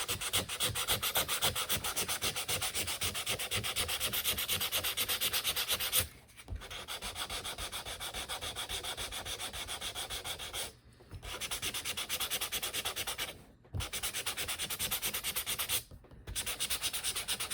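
320-grit sandpaper rubbed by hand over thin laser-cut wood in quick, even back-and-forth strokes, lightly sanding off the laser burn marks. The rubbing stops briefly four times.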